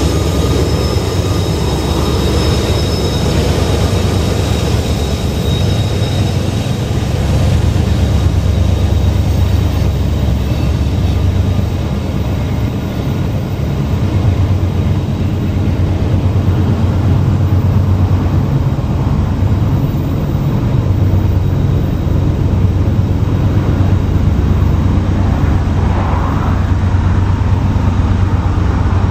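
A heavy CSX manifest freight train's tank cars and covered hoppers rolling past, a steady low rumble of steel wheels on rail. A mid-train diesel locomotive is moving away just as it begins.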